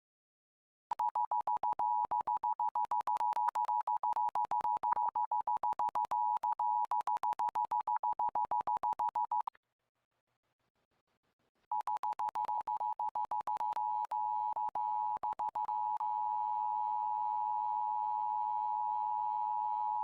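Emergency Alert System two-tone attention signal (853 and 960 Hz sounding together), heralding a tornado warning. For its first nine seconds it stutters with rapid dropouts from a lagging stream. It then cuts out for about two seconds and comes back as a steady tone with a faint low hum beneath.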